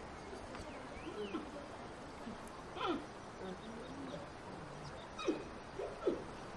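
Giant panda chirping and bleating in the breeding season: short calls that slide up and down in pitch, one sweeping sharply down about three seconds in, and a few more in quick succession near the end.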